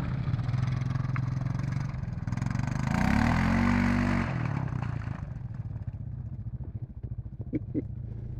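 ATV (quad bike) engine running steadily, then revving up with a rising pitch about three seconds in as a quad drives close past through mud. It drops back after about a second and fades as the quad pulls away.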